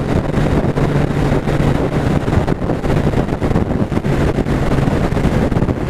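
Wind blasting over the microphone while a 2001 Suzuki Hayabusa's inline-four engine holds a steady drone at highway cruising speed on a wet road.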